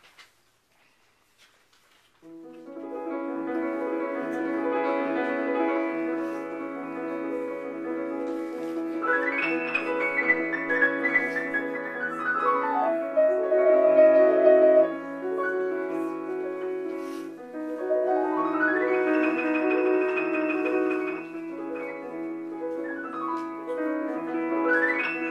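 Solo upright piano. After about two seconds of near silence a piece begins, with a low note repeated beneath the chords. Three times, quick runs sweep up the keyboard and back down.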